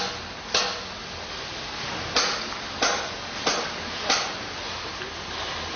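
Construction-site hammering: about six sharp, unevenly spaced hammer-like strikes, over a steady background of site noise and low hum.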